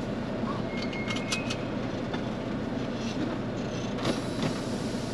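A semi truck's diesel engine idling, heard from inside the cab as a steady low rumble. A few short squeaks and clicks come about a second in, and one more click near the end.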